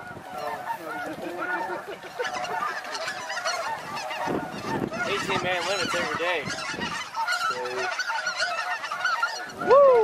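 Many snow geese calling at once: overlapping short honks that grow louder after a couple of seconds, with one loud, close call near the end.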